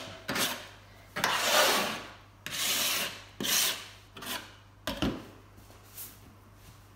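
Scraper drawn in a series of strokes over a VW Beetle's steel engine lid, lifting paint softened by chemical stripper. The strokes grow shorter and fainter toward the end.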